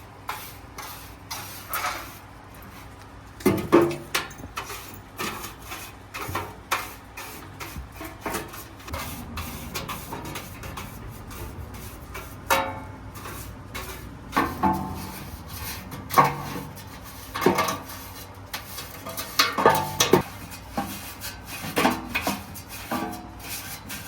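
Irregular clanks, knocks and scraping of metal parts being handled, a few of the knocks ringing briefly.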